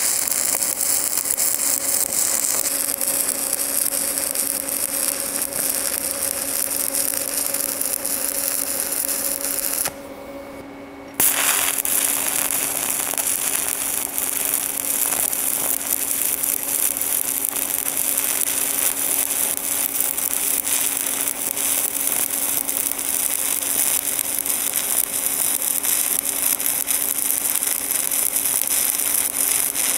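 Stick welding arc from a 1/8-inch 7018 electrode at 100 amps on carbon steel pipe, a steady crackle as a cap pass is laid. The arc breaks off about ten seconds in and strikes up again just over a second later for the next bead.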